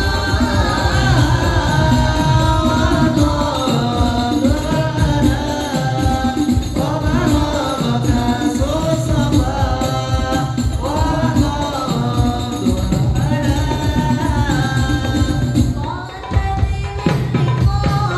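Voices singing an Islamic devotional song (sholawat) over steady hand-drum and tambourine percussion, with a short drop in loudness near the end.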